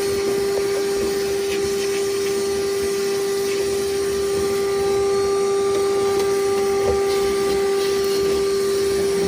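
Steady electric motor whine, one unchanging pitch with overtones, from a machine left running, with a few faint knocks.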